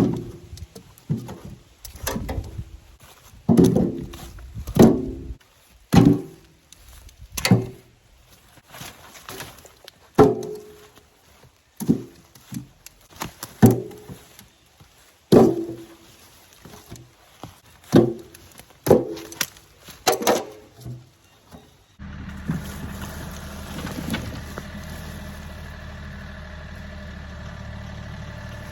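A series of sharp knocks with a short ring, one every second or two, then an abrupt switch about two-thirds of the way in to a steady engine running.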